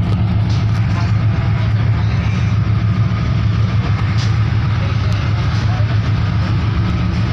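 Passenger ferry's engines running: a steady low rumble, with a few faint knocks.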